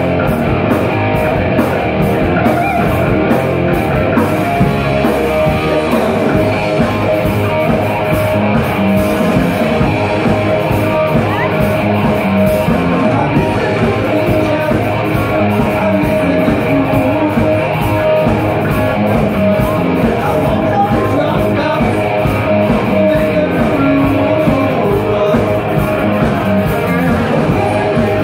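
Live rock band playing: electric guitar through a Randall amp, bass guitar and drum kit, with a man singing into the microphone.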